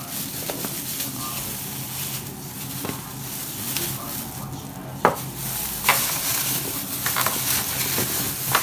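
Hands in thin plastic gloves tossing diced raw potatoes in a bowl: a steady crinkling rustle, with a few sharp knocks of potato pieces about five and six seconds in.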